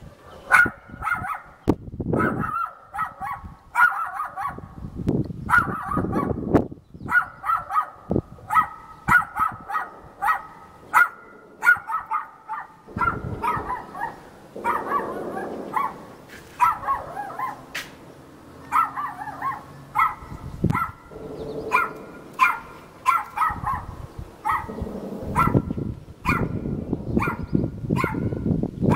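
Dog barking over and over, in runs of quick barks with short pauses between them.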